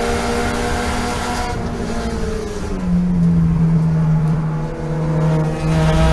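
Toyota GT86 race car's flat-four engine heard from inside the cockpit, its revs falling as the driver lifts off and brakes in fourth gear. It then settles to a steady low drone through the corner and picks up again near the end as the throttle goes back on.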